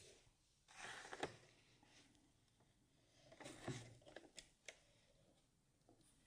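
Near silence broken by faint scattered rustling and a few small clicks, around a second in and again past the middle.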